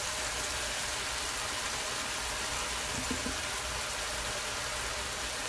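Sauce sizzling and bubbling steadily in a hot wok.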